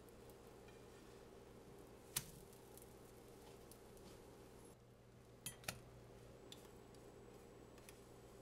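Near silence with a steady low hum, broken by one sharp click about two seconds in and two more close together a little past halfway.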